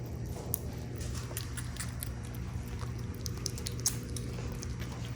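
Five-week-old kittens eating from plates: scattered small chewing clicks and light taps, over a steady low hum.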